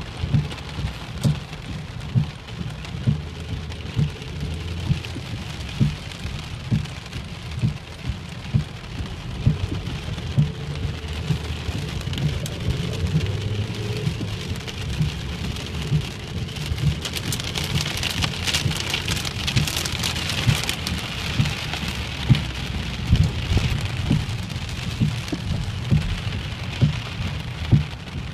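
Heavy rain falling on a car's roof and windscreen, heard from inside the cabin, with a short low thump about once a second. The rain's hiss grows louder about two-thirds of the way through.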